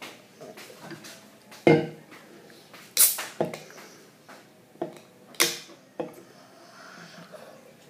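An aluminium soda can set down on a hard table with a knock, then worked open by its pull tab: two sharp snaps, each trailing off in a brief hiss, with small clicks in between.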